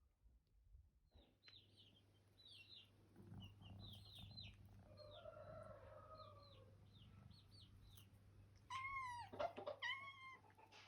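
Faint bird calls: a run of short high chirps, a longer drawn-out call in the middle, then two louder calls near the end. The calls are typical of chickens.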